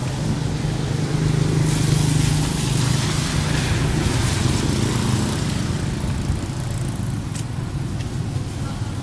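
Hyundai County minibus engine idling with a steady low hum, a little louder about two seconds in, over the hiss of the wet street.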